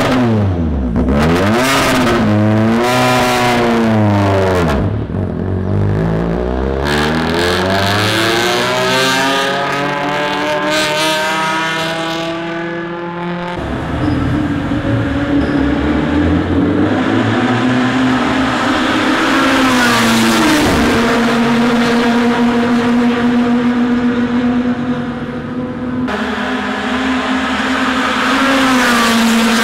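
Proton Suprima S race car's engine and exhaust being revved hard while the car stands still, the revs swooping up and down in repeated blips. After a cut, the car is heard running at high revs out on the circuit, with one brief drop in pitch at a gear change, then climbing again as it approaches.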